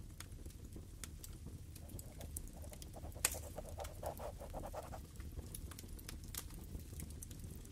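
Wood fire crackling in a fireplace: faint, irregular pops and snaps over a low rumble, with one sharper pop about three seconds in.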